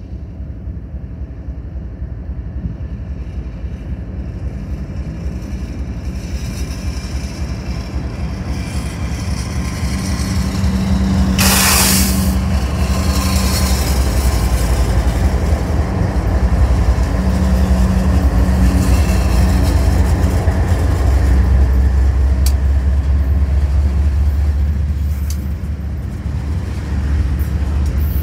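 Diesel-hauled freight train rumbling past, the low engine and rail rumble growing louder over the first ten seconds and then holding steady, with a brief hiss about a third of the way in.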